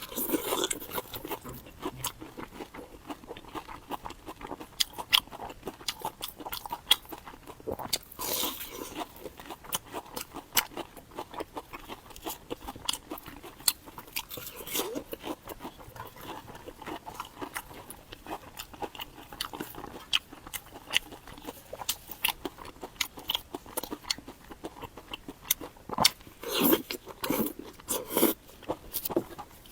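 Close-miked eating sounds: a person biting and chewing food, with many irregular wet mouth clicks and crunches, and a louder spell of chewing near the end.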